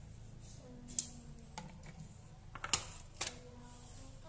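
A handful of sharp, separate clicks of a utensil knocking against a frying pan while the last bits are picked out of it, one pair close together just past the middle.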